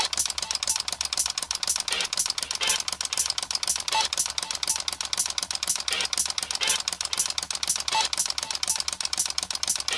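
Gakken flip clock's plastic number flaps clattering over in a rapid, steady run of clicks as the clock fast-advances its displayed time.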